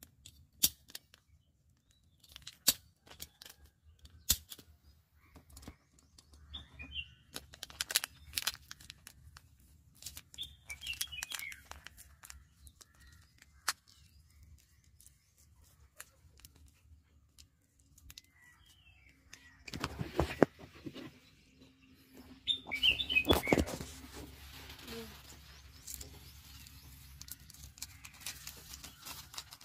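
Scissors snipping and a plastic candy wrapper crinkling as it is cut and folded, in a series of sharp clicks. Birds chirp briefly now and then, and about two-thirds of the way in dry leaves and twigs rustle loudly.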